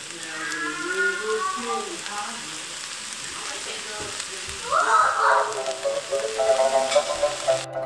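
Fried rice sizzling in a frying pan: a steady hiss of frying that cuts off sharply near the end.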